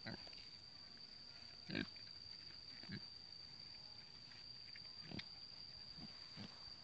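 Pig grunting: short, low grunts every second or so, the loudest about two seconds in, over a faint steady high-pitched whine.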